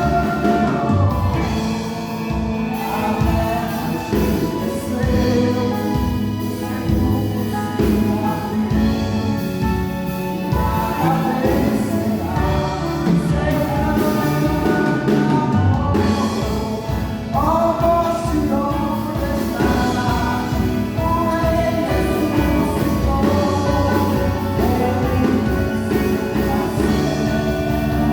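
A live gospel band playing a worship song, with singing over bass, drums and other instruments.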